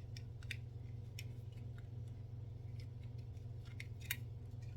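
Scattered small clicks and taps of hard plastic as a toy action figure's clamp accessory is handled and its parts folded. A steady low hum runs underneath.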